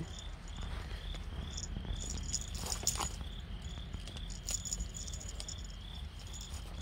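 An insect chirping steadily, about two short high chirps a second, with a few faint clicks about three seconds in.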